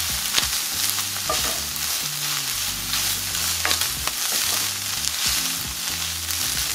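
Shredded chicken sizzling in oil and butter in a hot enameled cast-iron skillet while a wooden spoon stirs in the bouillon seasoning. A steady sizzle runs throughout, with occasional scrapes and clicks of the spoon against the pan.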